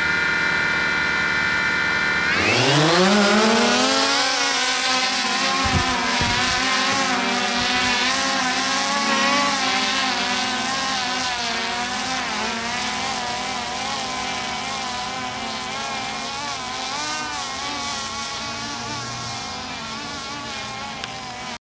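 DJI Phantom 3 quadcopter propellers: a steady high whine, then about two seconds in the hum rises in pitch as the motors speed up, settling into a steady hover hum that wavers slightly in pitch.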